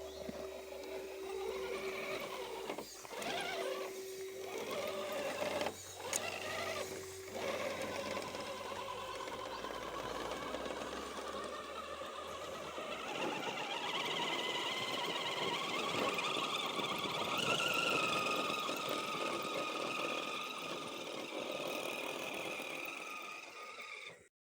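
Radio-controlled rock crawler's electric motor and gear train whirring steadily as the truck crawls, with brief pauses a few seconds in.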